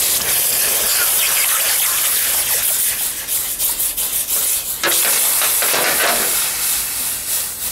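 Hot steel tong blank quenched in a tub of water, hissing and sputtering loudly as the water flashes to steam against it. The hiss breaks off briefly about five seconds in, then picks up again and tails off near the end.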